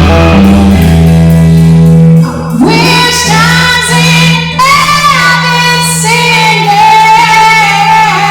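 Live rock song: band instruments with a steady bass note, then a singer coming in about two and a half seconds in with long held notes.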